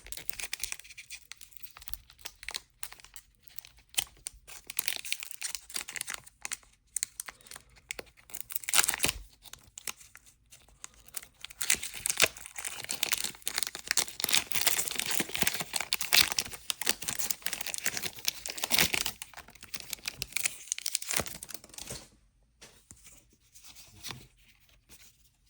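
Foil wrapper of a Pokémon TCG booster pack being torn open and crinkled by hand, in many sharp crackles with a dense stretch of rustling midway. Near the end it dies down to faint handling.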